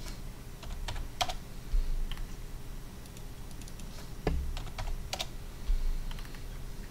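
Computer keyboard keys and clicks tapped irregularly, with a few dull thumps, the loudest about two seconds in and near the end.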